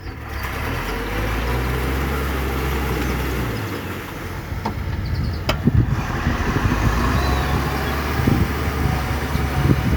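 Farm machine's engine running under load while ploughing wet ground. Its low steady hum changes and turns rougher about three and a half seconds in, with a sharp click near the middle.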